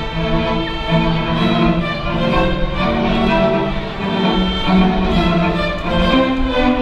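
Children's string orchestra of violins and cellos playing together, held low notes moving to a new pitch about once a second under the higher violin parts.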